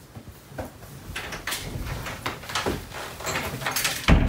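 Irregular clicks and knocks, as of objects being handled or moved, with a heavy thump about four seconds in.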